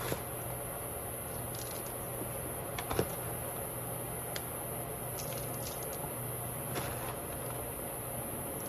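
Small orchid bark chips rustling and clicking as they are picked from a plastic tub and dropped into small plastic pots, a few light clicks scattered through, the clearest about three seconds in. Under them runs a steady low hum.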